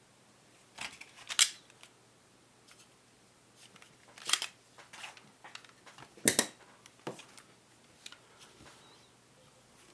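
Sharp clicks and snaps from a spring-powered airsoft pistol's plastic and metal parts being worked by hand during field stripping. A few separate clicks come, the loudest about six seconds in.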